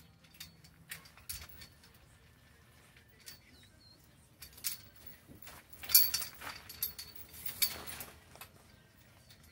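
Scattered light clicks, taps and short scrapes of a window glass pane being handled on a metal work stand, the loudest knocks about 6 and 7.5 seconds in.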